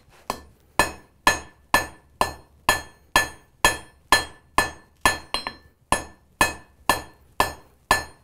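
Blacksmith's hand hammer striking a red-hot iron bar on an anvil at a steady two blows a second, each blow with a short bright ring from the anvil: the bar is being drawn out in length.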